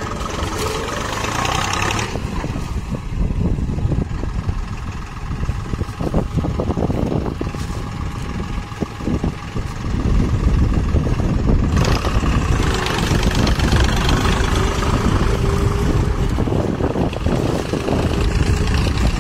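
Deutz-Fahr Agrolux 50 tractor's diesel engine running under load while pulling a disc plough through dry soil; louder from about ten seconds in.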